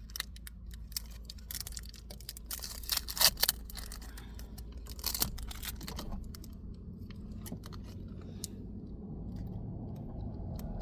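Clear adhesive tape being peeled and pressed into place by hand, with irregular crackles and small clicks over a low steady hum. The crackling is densest in the first half and dies away after about six seconds.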